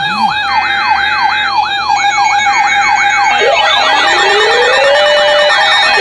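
Weather alert radios sounding electronic siren alarms for a severe thunderstorm warning. A siren sweeps up and down about three times a second over steady tones, and about three and a half seconds in more sirens join, among them a slower sweep and a slow rising wail.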